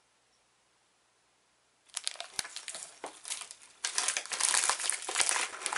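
Clear plastic cookie bag crinkling as it is handled and opened, starting about two seconds in and getting louder about four seconds in.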